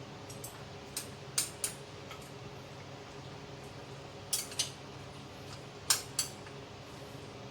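Kitchenware clinking as utensils and dishes are handled: short, sharp clinks, mostly in pairs, over a steady low hum.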